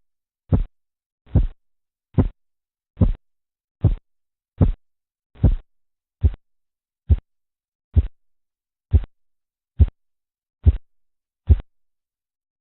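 Korotkoff sounds heard through a stethoscope over an artery as the blood pressure cuff deflates: about fourteen short, even thumps a little more than one a second, with the pulse. They fall silent near the end, the disappearance that marks the diastolic pressure.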